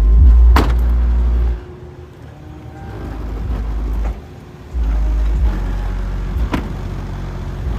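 A 12-inch Kicker CompR dual-voice-coil subwoofer playing bass-heavy music inside a car. The deep bass drops away about a second and a half in, swells back, and comes in strong again past the middle, with two sharp hits.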